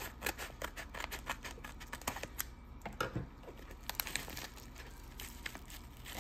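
Scissors cutting through a plastic mailer in a quick run of sharp snips, then the mailer rustling as it is pulled open, about four seconds in.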